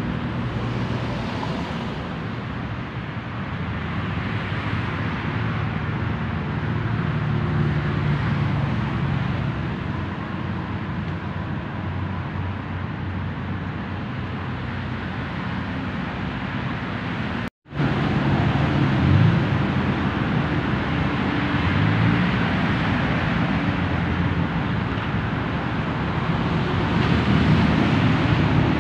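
Steady road traffic noise with the low drone of vehicle engines. It cuts out completely for an instant about two-thirds of the way through.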